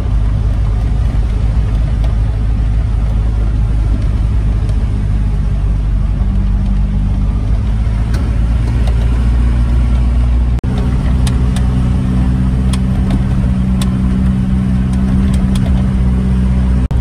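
Troller 4x4's diesel engine running steadily while driving, heard from inside the cab, with scattered sharp ticks in the second half.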